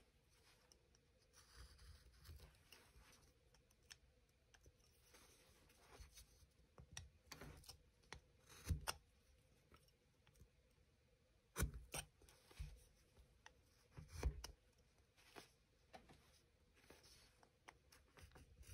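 Hand carving tool paring and cutting into basswood: faint, irregular slicing and scraping strokes, with a few sharper clicks of the blade about 9, 12 and 14 seconds in.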